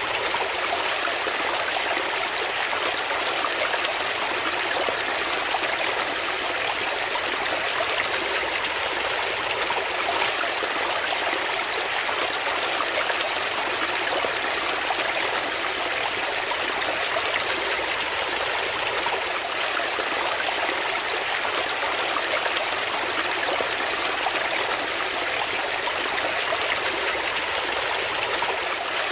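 Brook water running and splashing over rocks in a small cascade: a steady, unbroken rush, bright and splashy with little deep rumble.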